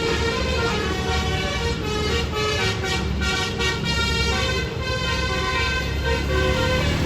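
Tour bus 'telolet' Basuri multi-tone musical horn playing a melody of changing notes, over the low steady running of the bus's engine.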